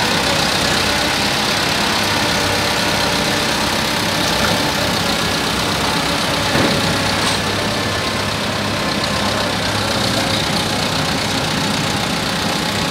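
Massey Ferguson 385 tractor's four-cylinder diesel engine idling steadily, with a single brief knock about six and a half seconds in.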